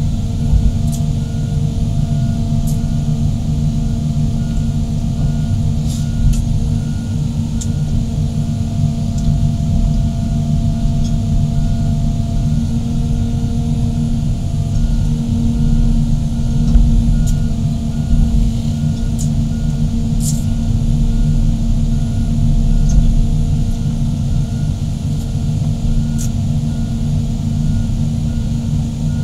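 Heavy excavators' diesel engines running steadily under load, a deep continuous rumble, with a faint evenly repeating beep and a few light metallic clicks over it.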